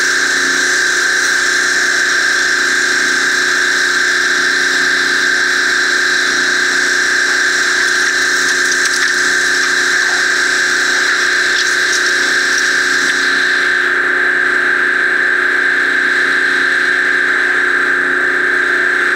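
A 3100 PSI pressure washer running steadily, its zero-tip straight stream jetting into soil to cut a trench.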